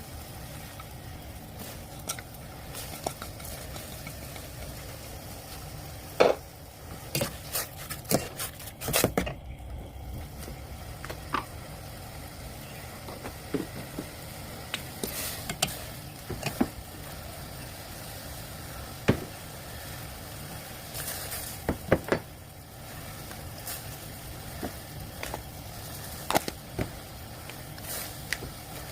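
Instant noodles cooking in a pot on the stove: a steady low noise runs throughout, with scattered sharp clinks and knocks of a utensil on the pot, the loudest about six, nine, nineteen and twenty-two seconds in.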